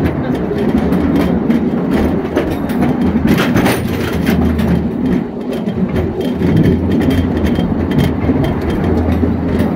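Mancha electric mine locomotive running at full throttle on its track: a steady rumble of steel wheels on rail, with frequent clacks and rattles as it rides over the rail joints. A denser clatter comes about three and a half seconds in.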